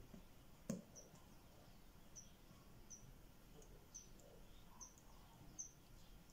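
Near silence with a single small click about a second in, from a DIP switch being flipped on the breadboard. Faint high-pitched chirps repeat about once a second.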